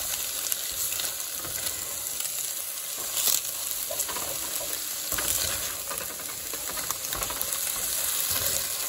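Tofu scramble with onions sizzling steadily in a hot nonstick skillet while a spatula stirs and scrapes it around the pan, with a sharper scrape about three seconds in.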